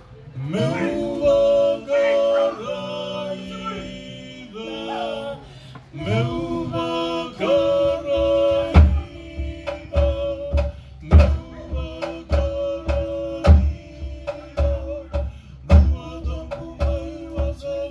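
Live Fijian group music: voices singing long held notes, sliding up into the first one. From about six seconds in a drum beats along under the singing and guitar.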